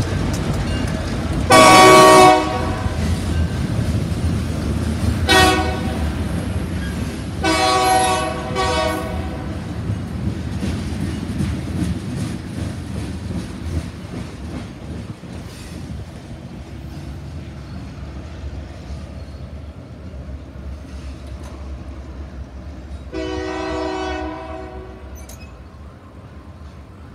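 Freight train with two diesel locomotives passing a grade crossing: the locomotive horn sounds three blasts in the first nine seconds, a long one, a short one and another long one. Then the rumble and clatter of tank cars rolling by, slowly fading, with one more fainter horn blast near the end.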